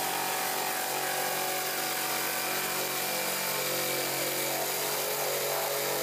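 Electric jigsaw running steadily, its blade cutting a hole through a cooler lid.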